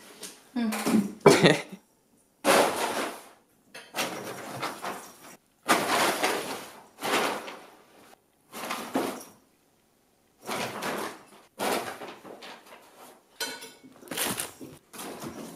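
Paper rustling and crinkling in a string of short bursts, the sound of a cat pouncing into and scrabbling inside a brown paper grocery bag, with a few knocks and clatters at the start.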